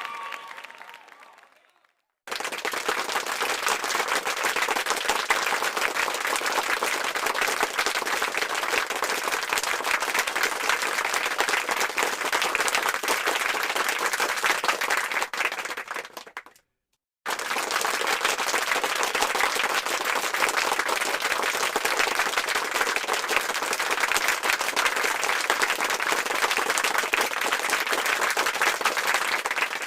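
A crowd applauding: a dense, steady clapping that cuts in about two seconds in after a short silence, stops abruptly about sixteen seconds in, then starts again a moment later and runs on. Before the first stretch, an earlier crowd sound fades out.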